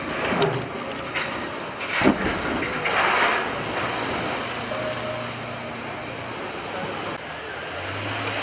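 A ship side-launched into a canal: a sudden loud crash about two seconds in as the hull drops off the slipway into the water, then a rush of spray and displaced water that settles into a steady wash of waves.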